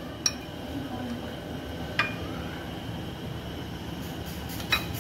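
Metal fork clinking against glass bowls three times, once about a third of a second in, once around two seconds in with a short glassy ring, and once near the end, over a steady low background rumble.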